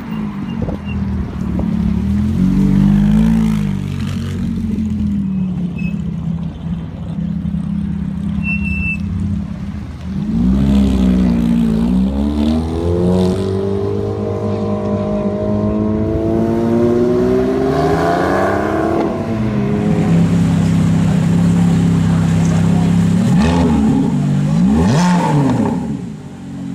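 Ferrari F430's 4.3-litre V8 exhaust, loud. The pitch rises and falls at first, then climbs in a long acceleration over several seconds, settles to a steady idle, and near the end goes through two quick throttle blips.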